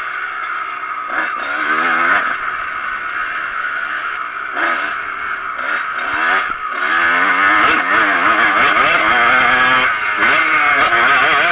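Kawasaki KX125 two-stroke single-cylinder engine being ridden hard, its pitch repeatedly climbing and dropping as the throttle opens and closes. It gets louder from about seven seconds in.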